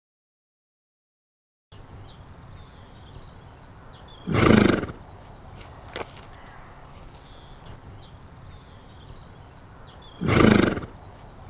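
A horse giving two short, low grunts about six seconds apart, each lasting well under a second.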